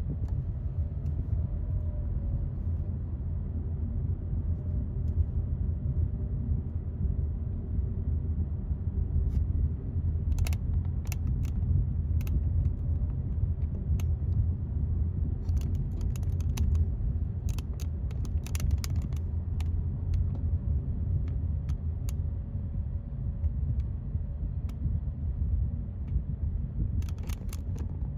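A steady low rumble, with scattered light clicks and ticks coming and going in its middle and again near the end.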